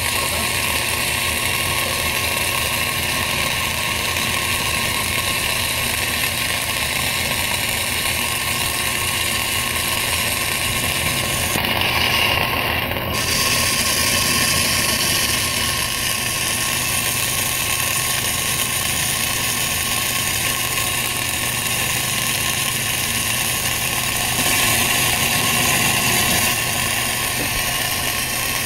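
Electrogas welding arc of a railless automatic welding carriage, crackling and hissing steadily as it welds a vertical seam in steel plate.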